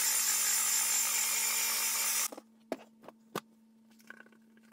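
Makita rotary polisher with a wool buffing pad running steadily with a high whine, buffing rubbing compound into a fiberglass gelcoat repair, then cutting off suddenly a little over two seconds in. A few short knocks follow.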